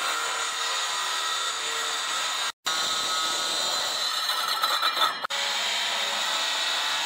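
DeWalt corded circular saw running and cutting through a sheet of plywood, a steady high-pitched whine of the blade in the wood. The sound cuts out briefly about two and a half seconds in and grows rougher and more uneven a little before five seconds.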